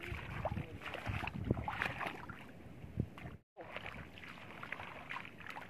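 Footsteps wading through ankle-deep seawater over seagrass, an irregular run of splashes and sloshes. The sound cuts out briefly about three and a half seconds in.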